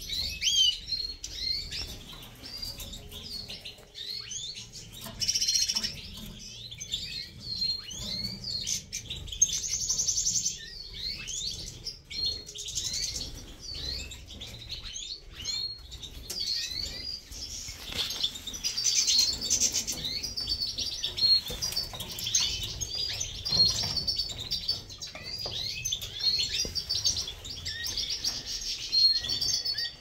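Many caged canaries and finches chirping and singing at once, a dense overlapping chorus of short calls and rapid trills with no pause.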